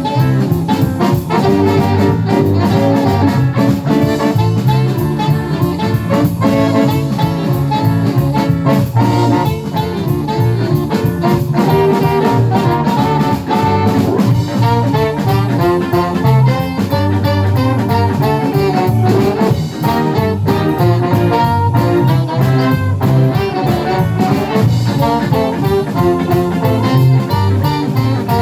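Live band playing a jazzy song with a steady beat: saxophone and horn lines over drums, bass and guitar.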